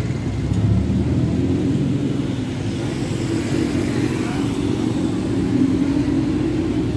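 Street traffic passing close by: motor scooter and car engines running over a wet road surface.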